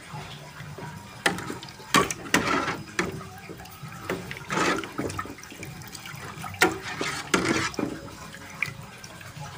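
Metal ladle stirring soup broth in a metal pot: liquid sloshing and swirling, with sharp clinks of the ladle against the pot's side several times.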